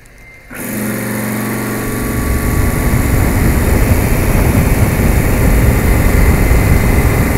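Refrigeration condensing unit with a Bitzer reciprocating compressor starting up suddenly about half a second in, then running steadily with a low motor hum that grows louder over the next couple of seconds as it comes up to speed. It is restarting now that the oil-level protection circuit has been reconnected.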